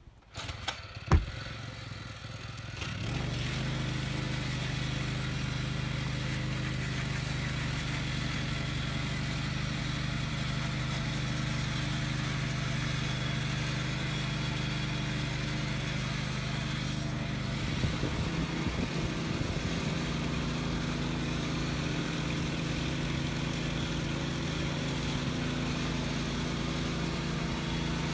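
Small gasoline engine of a walk-behind concrete power trowel starting up after a sharp knock about a second in, then running steadily, its note shifting a little partway through as the trowel works the slab.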